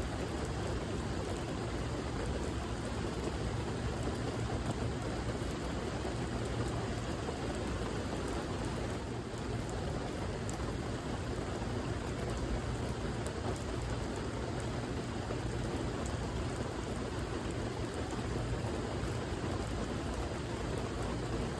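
Steady rain: an even, unbroken hiss with a deep low rumble underneath and faint scattered drop ticks.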